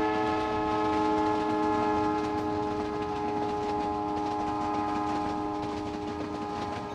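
A train running, with a multi-note horn sounding over the noise of the train. The horn holds as one long steady chord that slowly fades.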